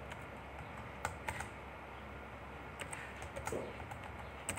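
Typing on a computer keyboard: slow, irregular keystrokes, single clicks and short runs with pauses between them.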